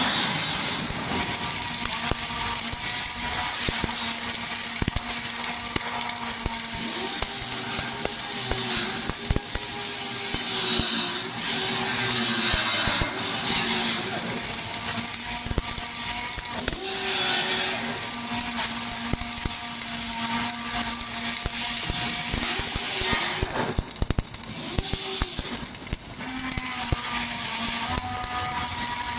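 Steady, loud industrial shop noise: a constant high hiss over the hum of running machinery, with irregular crackling clicks throughout.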